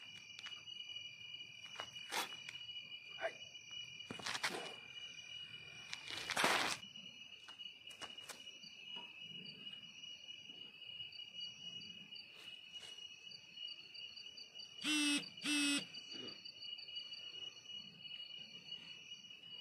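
Crickets and other insects trilling steadily in high, unbroken tones, with a few sharp knocks or slaps in the first seven seconds. About three-quarters of the way through come two short, loud, pitched calls close together.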